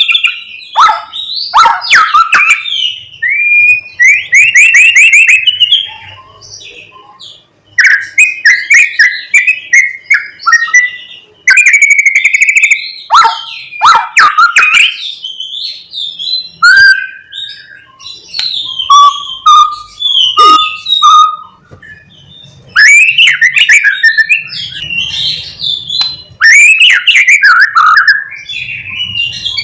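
White-rumped shama singing loudly in rapid, varied phrases: gliding whistles, buzzy trills and quick ticking notes, in bursts with short pauses between them.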